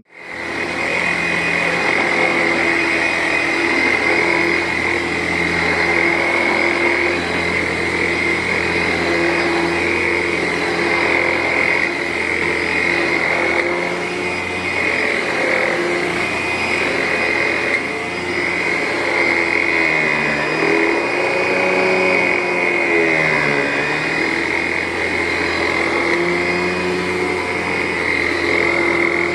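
Vacuum cleaner switching on and running steadily over carpet with a loud motor whine. Twice, about two-thirds of the way through, its pitch sags briefly and recovers.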